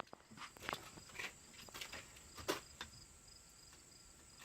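Faint insect chirping, an evenly repeated high-pitched pulse, with a few scattered light clicks and knocks.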